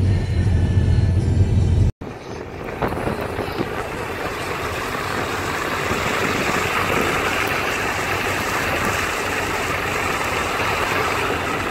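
Steady road noise of a car driving on a snow-covered road, heard from inside. A deep rumble for the first two seconds breaks off suddenly, and a brighter, steady rushing noise of wind and tyres follows.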